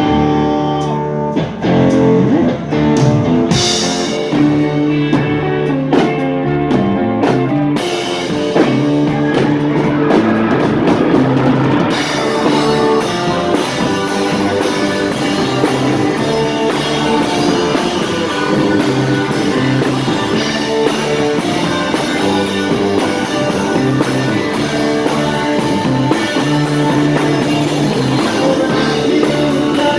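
Rock band playing live: guitar lines at first, then from about twelve seconds in the full drum kit with cymbals drives along under the guitars.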